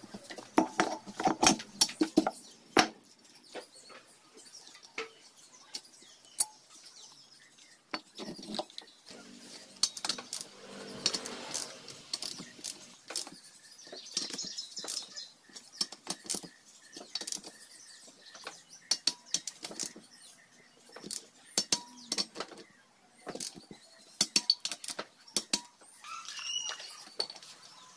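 Irregular clinks, taps and knocks of metal engine parts and hand tools as a Honda MB50 50cc engine's cylinder and head are fitted and tightened down.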